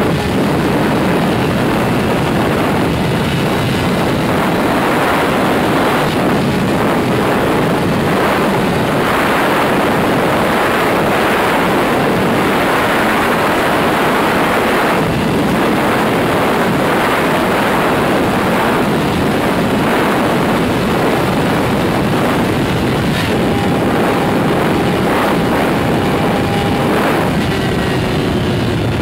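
Loud, steady wind roar over a 2001 Yamaha YZF-R6's 600cc inline-four running at high revs near full throttle, at roughly 120 to 150 mph.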